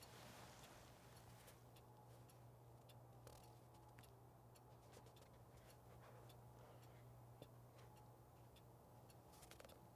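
Near silence: faint room tone with a steady low hum and faint, scattered ticks.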